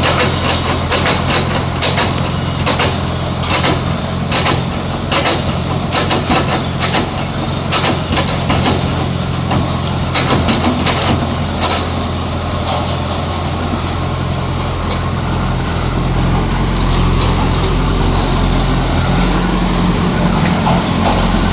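Biomining machine running: a steady heavy engine drone, with irregular clattering knocks through the first half that die away a little past halfway, leaving the engine running on steadily.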